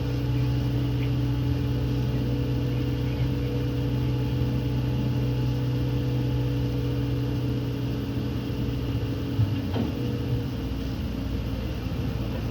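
CAT skid steer loader's diesel engine running steadily, with one sharp knock about nine and a half seconds in.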